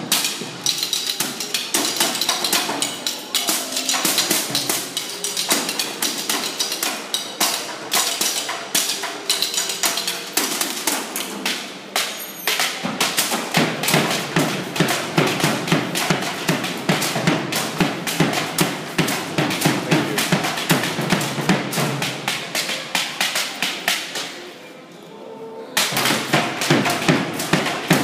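Percussion ensemble playing by hand: a fast, dense stream of light taps, joined about halfway through by the deeper strokes of large frame drums. The playing drops to a soft passage for about a second near the end, then the full texture returns.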